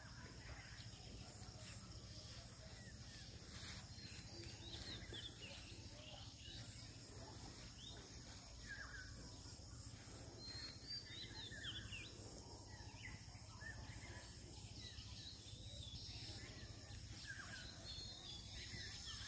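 Faint outdoor ambience: scattered short bird chirps over a steady high hiss, with a soft knock about four seconds in.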